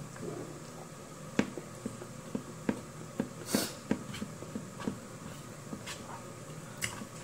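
Eating sounds of a person chewing food and eating with her fingers: scattered soft mouth clicks and smacks, with one short hissy breath about halfway through.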